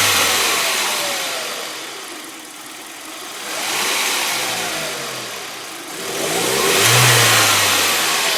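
1998 Audi A4 B5 engine idling rough and surging: the revs sink, swell again about three and a half seconds in, sink, and swell once more near the end, hunting between about 1400 and 800 rpm. It has fault code P1545 logged, a throttle position control fault.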